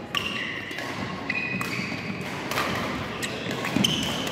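Badminton rally on an indoor court: several sharp racket-on-shuttlecock hits, the loudest near the end, and short high-pitched squeaks of players' shoes on the court floor.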